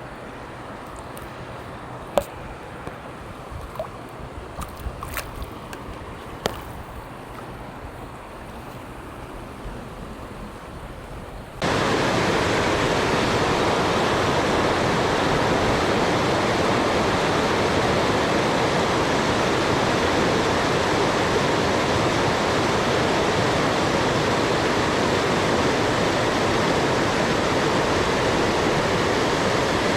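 Flowing river water. At first it is a quieter rush with a few scattered sharp clicks and taps, then about twelve seconds in it jumps suddenly to a much louder, steady rush of water.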